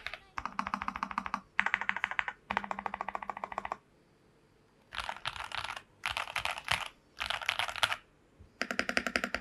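Typing on a CM64 custom mechanical keyboard with lubed KTT Wine Red linear switches in a plastic case: quick runs of keystrokes in short bursts, with a pause of about a second a little before the middle.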